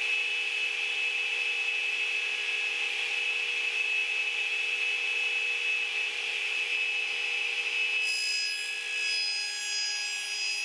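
Radial arm saw running at speed with a steady whine. About eight seconds in, the blade is pulled through quarter-inch plywood for a crosscut, adding higher tones for a few seconds.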